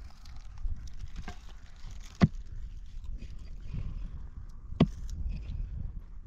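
Two sharp strikes about two and a half seconds apart, over a steady low rumble.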